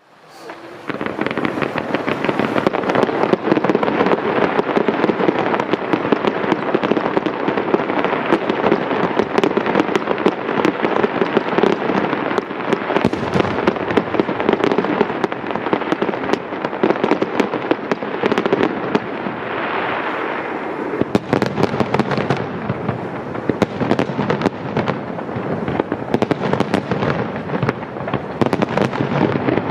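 Fireworks display going off in a rapid, near-continuous barrage of bursts and crackles, starting abruptly in the first second.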